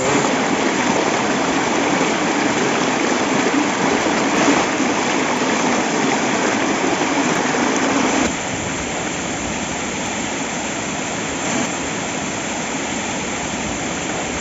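Steady rushing of a waterfall, an even wash of water noise that drops a little in level about eight seconds in.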